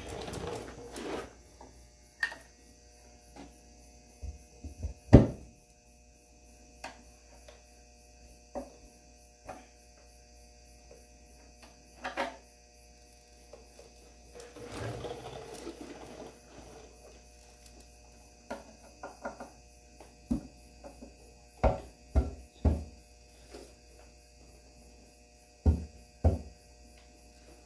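Hand ratchet and metal tools clicking and clinking on the oil pan bolts of an engine on a stand, in scattered short bursts, with sharper knocks about five seconds in and a few more near the end. A steady electrical hum runs underneath.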